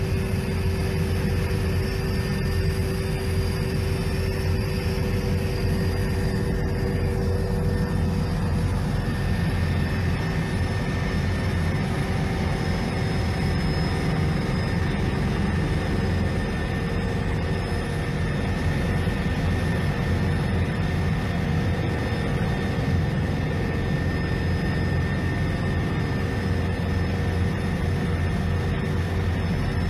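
Helicopter cabin noise in flight: a steady, loud low drone from the rotor and turbine engine, with a few faint steady whining tones above it.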